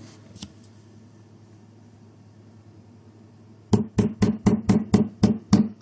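Tack hammer tapping the end of a small flathead screwdriver in quick, sharp strikes, about four a second, starting a little after the middle, driving the blade under a metal handle-bracket tab on a wooden typewriter case to pry it up.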